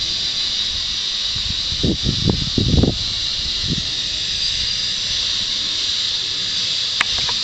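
Steady high-pitched hiss with a few low rumbling bumps about two to three seconds in, and a sharp click near the end.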